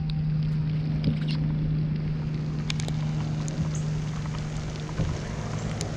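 Steady low hum of a boat motor running, over a constant wash of wind and water noise, with a few faint ticks.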